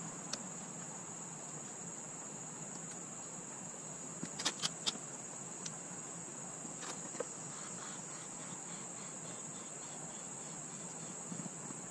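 Steady high-pitched drone of insects, with a few short sharp clicks about four and a half seconds in and another near seven seconds from the straps and clips of a kayak seat being fastened.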